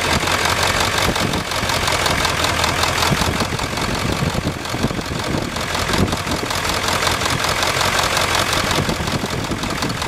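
Ford 7.3 Power Stroke V8 turbo-diesel idling with a steady diesel clatter. Its injectors are being switched off one at a time with push-button switches in a cylinder cut-out test for a weak cylinder.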